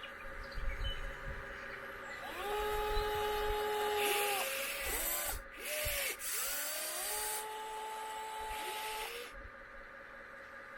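Small electric motors of a 1:14-scale radio-controlled model excavator whining. Twice they spin up and hold for a second or two, with short rising and falling whirs in between as the controls are worked. Scraping hiss comes in bursts in the middle.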